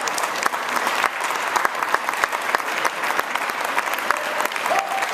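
A seated audience applauding steadily, many hands clapping at once.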